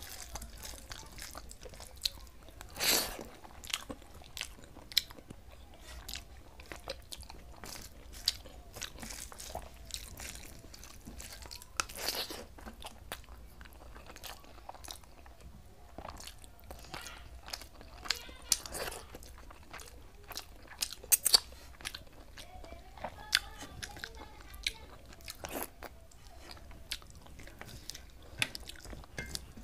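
Close-miked eating sounds: moist chewing and mouth smacks as hand-mixed rice and fish curry is eaten, with scattered sharp clicks and a few short scraping sounds from fingers working the food in a steel plate.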